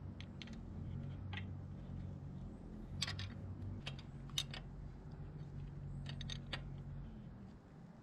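Scattered light metallic clicks and taps of a 12 mm open-ended spanner on a motorcycle's rear-wheel chain adjuster screws as they are turned to push the wheel back and tighten the chain. A low steady hum runs underneath.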